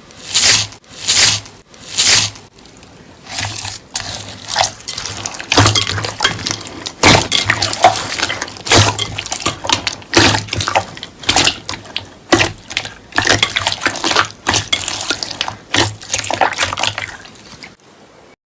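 Slime being squeezed and pressed by hand, making wet crackling and clicking sounds in short bursts. Three separate squeezes come first, then a faster, denser run that stops shortly before the end.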